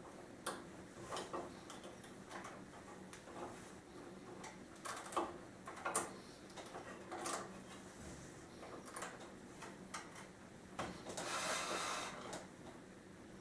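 Scattered light clicks and knocks of small metal hardware being handled as a wire rope clamp is fitted to join a cable end to a turnbuckle, with a longer scraping rustle lasting about a second near the end.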